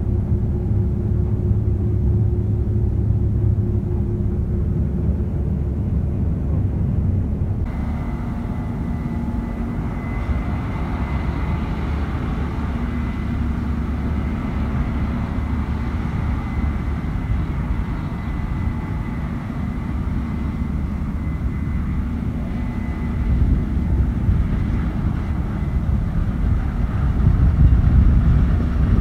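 Case IH Axial-Flow 8250 combine harvester running steadily with a low rumble. About eight seconds in, a higher mechanical hum and a thin steady whine join it. It gets somewhat louder near the end.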